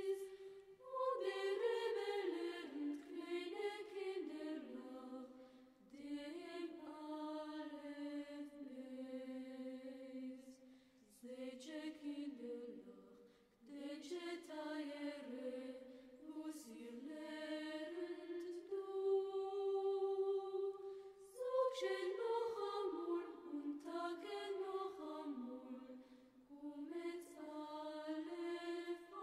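Background music: a slow solo melody with long held notes and pitches that slide up and down.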